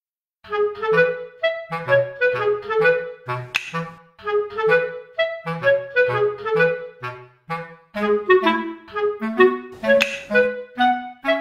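Cheerful background music: a woodwind melody of short notes over a bouncing bass line. A sharp click from the toy castanet cuts through twice, about a third of the way in and near the end.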